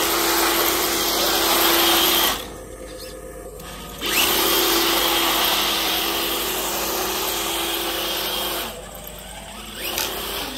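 Traxxas TRX-4 RC crawler's Hobbywing Fusion Pro brushless motor and drivetrain whining steadily under throttle as it drives on ice. The whine drops off twice: about two seconds in for under two seconds, and again near the end for about a second.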